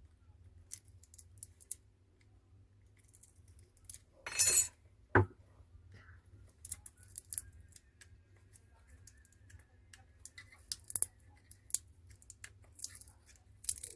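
A pry tool working under a phone's glued-in battery: scattered small clicks and scrapes, with a short scraping burst about four seconds in and a sharp knock right after it.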